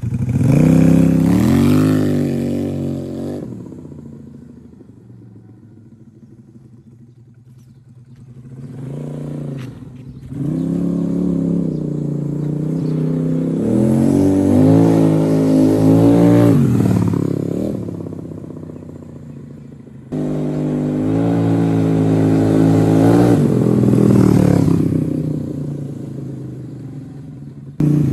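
Scooter with a home-built 250cc L-twin engine revving and accelerating, its pitch rising as it pulls away and then fading into the distance. It comes back loud in two more separate passes, each rising in pitch as the throttle opens, with cut-like jumps in level between them.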